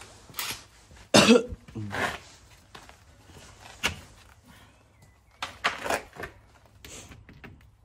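Irregular knocks, clatters and scrapes from handling a car wheel: a plastic hubcap being pried off a steel wheel and a cordless impact wrench being picked up. The loudest is a short burst about a second in.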